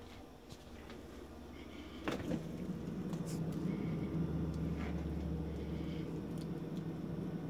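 A freezer is opened with a knock about two seconds in, and then the steady low hum of the running freezer holds.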